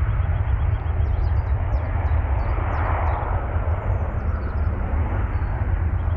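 Jet airliner engine noise, a steady broad rush, with heavy wind rumble on the microphone. A few faint high chirps come about one to three seconds in.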